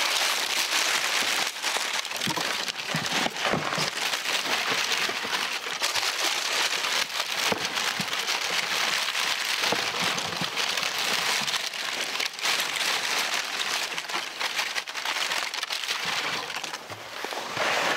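Crumpled paper packing rustling and crinkling continuously as it is handled and pulled out of a fibre shipping drum, a dense crackle of many small clicks.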